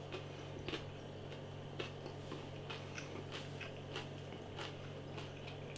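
Quiet room tone: a steady low hum with faint, irregular small clicks and ticks, and one slightly louder click near the end.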